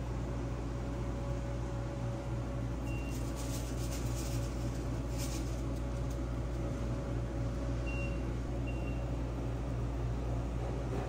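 Steady low machine hum of deli kitchen equipment. A few brief, faint crackles come through about three to five seconds in, and short faint high beeps sound near three and eight seconds.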